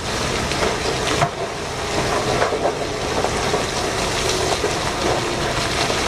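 Rock load sliding and tumbling out of a giant mining haul truck's raised dump body: a steady, dense, gritty rush.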